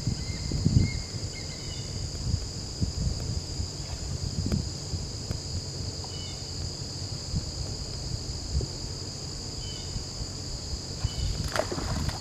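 Steady high-pitched buzzing of an insect chorus, over a low uneven rumble of wind on the microphone. Near the end there is a short rush of noise as water is churned by a hooked fish near the bank.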